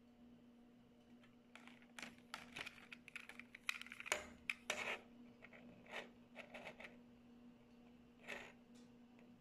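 A small green plastic gas lighter being handled and turned over in the hand: a run of sharp plastic clicks and short scrapes, densest in the middle, with one more click near the end.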